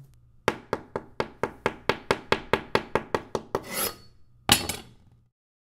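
Logo sound effect: a quick, even run of about fourteen sharp knocks on wood, some four a second, then a short whoosh and one final louder hit that dies away.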